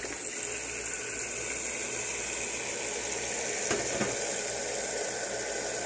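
Kitchen faucet running a steady stream of water into a stainless steel stock pot of deer fat trimmings, with a couple of light knocks about four seconds in.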